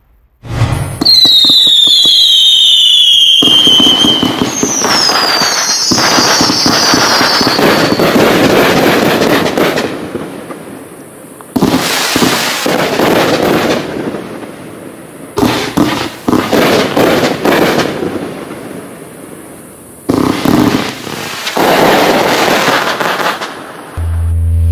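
Calavera Día de los Muertos 84-shot aerial finale cake firing: rapid launches and bursting shells with crackle, coming in several surges that ease off and jump up again. A few falling whistles sound in the first few seconds.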